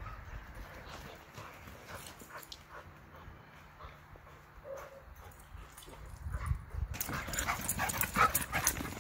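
Dogs at play, with small dog vocal sounds and quick scuffling. It is faint and scattered at first, then abruptly closer and louder from about seven seconds in, as two dogs chase past.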